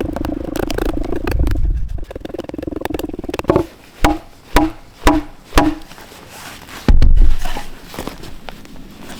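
A run of five sharp wooden knocks, about two a second, each with a short hollow ring, typical of wood being struck against wood, as when pieces are knocked into notched joints with an axe. About seven seconds in there is a brief loud low rumble.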